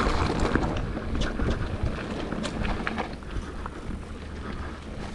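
Wind buffeting a helmet or bike-mounted action camera's microphone over the rough rumble of a mountain bike rolling on a dirt trail, with scattered rattles and clicks. It eases off about three seconds in.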